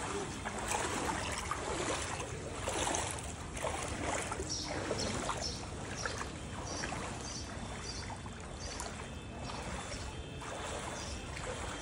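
Shallow floodwater sloshing and splashing, in a run of short repeated swishes.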